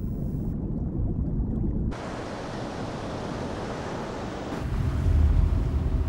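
Rushing, churning seawater around a remote-operated submarine going under. A low rumble swells about four and a half seconds in.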